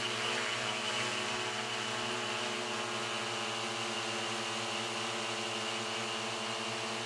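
ProSearch XLF quadcopter drone hovering close by, its motors and propellers giving a steady buzzing hum.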